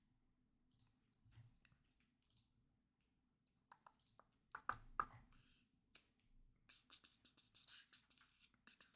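Faint clicking and tapping on a computer keyboard, with a few louder clicks about halfway through and a quick run of small key taps near the end.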